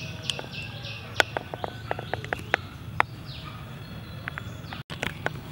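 Outdoor ambience of birds and insects chirping, with a burst of irregular sharp clicks between about one and three seconds in.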